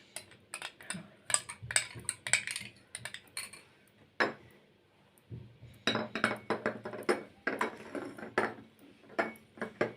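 A spoon clinking repeatedly against a glass, with a pause of about a second and a half midway: a spoonful of lemon syrup concentrate being stirred into a glass of water.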